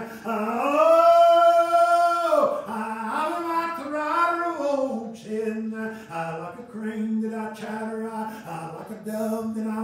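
A man's voice preaching in a chanted, sing-song style, his words held mostly on one steady pitch. About a second in he rises to a higher note, holds it for about a second and a half, then drops back.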